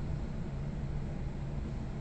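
Restroom vent giving a steady low hum over a rumbling drone, even throughout.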